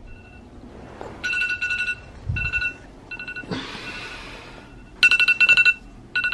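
Phone alarm going off: rapid electronic beeping in about five short bursts. There is a brief rustling swish about halfway through.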